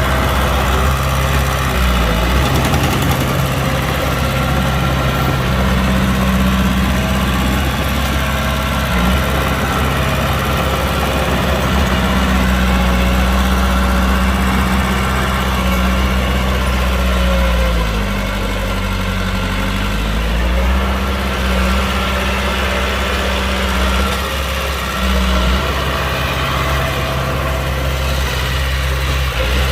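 Heavy diesel earthmoving machinery running steadily, its engine speed dropping and picking back up several times as it works.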